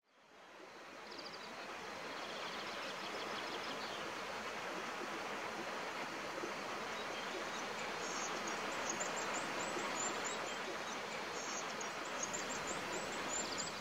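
Outdoor wilderness ambience fading in from silence: a steady rushing hiss with high-pitched chirping, a run of trills in the first few seconds and quick repeated chirps over the last several seconds.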